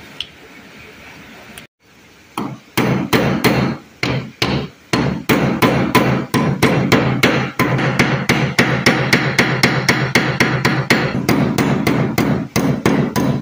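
Hammer striking a notched 3x3 cm square hollow steel tube to fold it into a 45-degree corner. It opens with a few spaced blows about two seconds in, then settles into quick, steady tapping, several blows a second.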